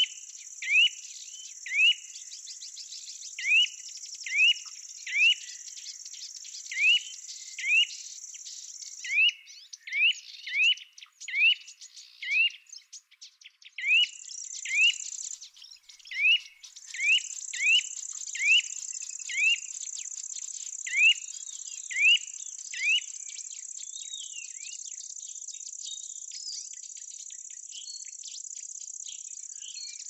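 Field crickets or bush-crickets trilling in a steady high buzz that drops out for several seconds in the middle, with a bird repeating short rising chirps every second or so, often in pairs; the chirps are the loudest sound.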